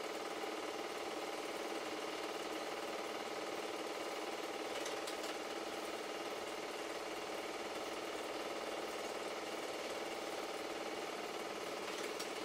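Super 8 film projector running: a steady mechanical whirr of motor and film transport, with a faint click about five seconds in.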